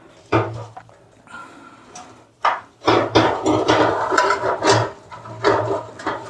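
Hard disk being slid into a PC cabinet's drive bay: handling knocks and scraping, with a knock about half a second in and a longer run of scraping and rattling from about three to five seconds.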